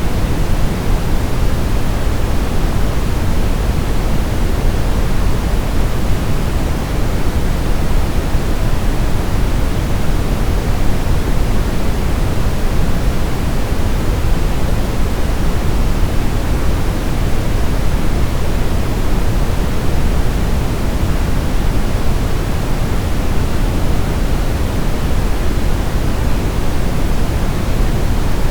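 Brown noise: a steady, unchanging hiss that is heaviest in the low bass and fades toward the treble, with no rhythm or events.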